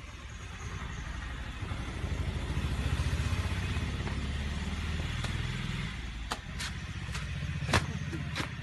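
Engine of a passing motor vehicle, like a motorcycle, running steadily and growing louder to a peak about three seconds in, then fading a little. Near the end come five or six sharp knocks.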